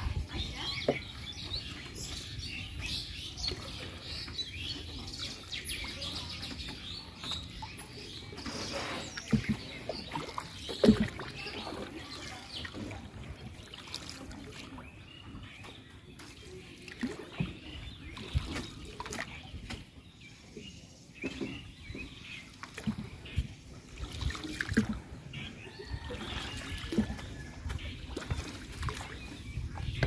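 Birds chirping around a slowly moving wooden rowboat on a river, with water lapping at the hull. Irregular wooden knocks come from the boat, the loudest about eleven seconds in.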